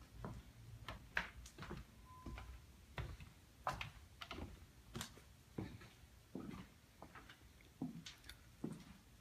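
Irregular light knocks and clicks, one or two a second, some with a dull low thump, and a faint short beep about two seconds in.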